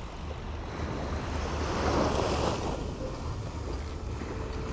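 Small waves breaking and washing up a sandy beach, the wash swelling about two seconds in, over a steady low rumble.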